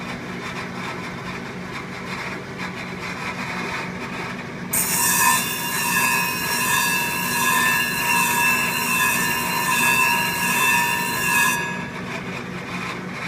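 Clipper blade sharpening machine's motor humming steadily; about five seconds in, a clipper blade is pressed onto the spinning grit-charged plate, giving a loud high grinding hiss with a few steady whining tones for about seven seconds, then lifted off suddenly. The grind is a clean one that does not chew up the blade.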